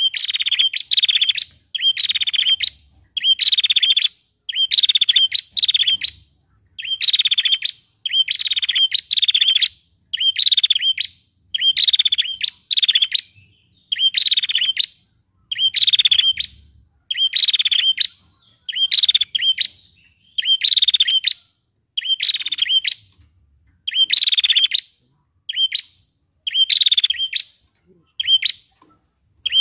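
Female prenjak, a small songbird, calling loudly: a buzzy, trilling call of about half a second, repeated about once a second without pause, with a few shorter notes near the end.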